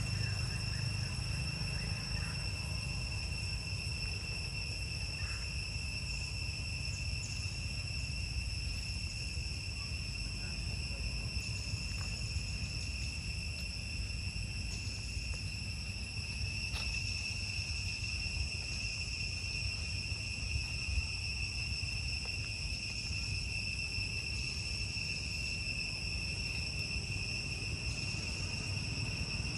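Steady, high-pitched insect chorus droning on one unchanging tone, with a low rumble underneath.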